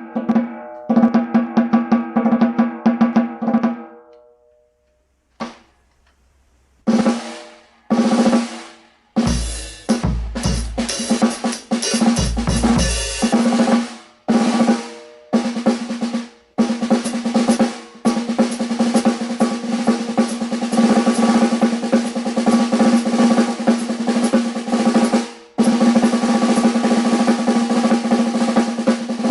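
Handmade snare drum with a 15 by 5¼ inch solid maple shell and wooden hoops being played: short phrases of stick strokes with pauses, a few deep thumps underneath about a third of the way in, then a long, dense continuous roll, broken once briefly near the end. Each stroke rings with a strong low tone.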